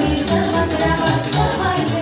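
Band music with a steady fast beat: saxophone and keyboard over a bass line, with no words sung.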